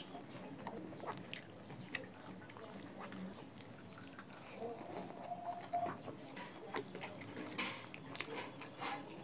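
Close-up mouth sounds of a person chewing a chicken drumstick: irregular wet smacks and clicks of lips and teeth.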